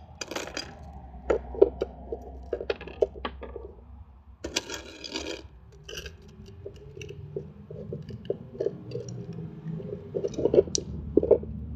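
Marbles clinking as they are dropped one after another into a container, in irregular sharp clicks, with a few brief scraping rustles between them.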